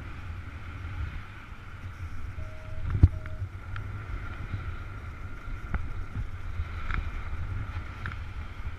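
Airflow rushing over the camera microphone during paraglider flight, a steady low rumble and hiss. A pair of short, even-pitched electronic beeps from a flight variometer comes about two and a half seconds in, and a sharp knock against the mic just after is the loudest moment, with a few fainter clicks later.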